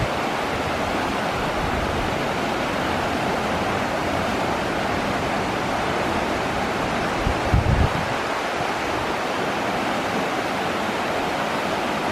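Floodwater of a flash-flooded trout stream rushing steadily. A brief gust of wind hits the microphone about seven and a half seconds in.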